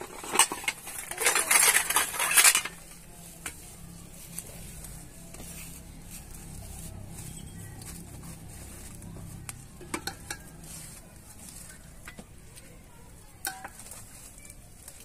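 A metal ladle and steel dishes clatter and scrape while curry is served, loudest in the first two or three seconds. After that come a faint crackle from the wood fire under the tawa and a few light clinks of metal, around ten and thirteen seconds in.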